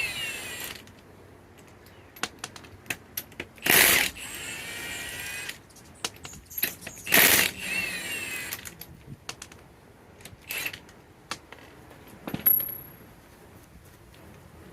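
Impact wrench firing in three short bursts a few seconds apart, spinning lug nuts off a car wheel, each burst trailing off in a ringing tone. Light metallic clinks of lug nuts and tools come between the bursts.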